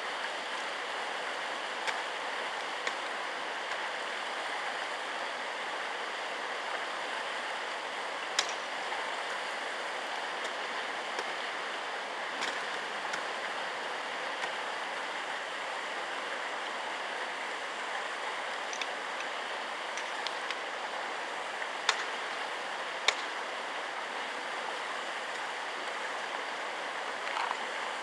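Steady rush of running water, with a few sharp clicks or knocks scattered through it.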